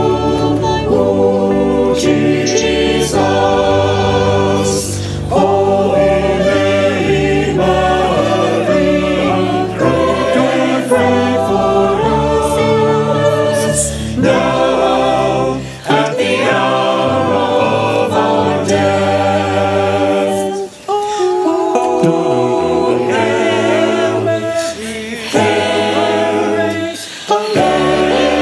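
Choir singing a sacred piece, sustained vocal lines with a deep bass underneath for the first half; about halfway through the bass drops away, leaving mostly voices.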